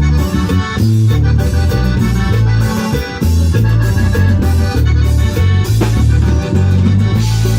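Live regional Mexican band playing an instrumental passage: a keyboard-led melody over a steady, bouncing bass line, with no vocals.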